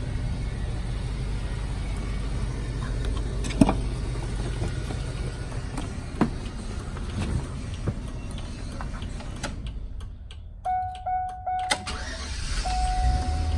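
Steady outdoor wind rumble with a few knocks, the loudest about three and a half seconds in, as the cab door of a 2003 Chevrolet cutaway school bus is opened and the driver climbs in. About ten seconds in, the cab's warning chime starts beeping repeatedly in short evenly pitched tones.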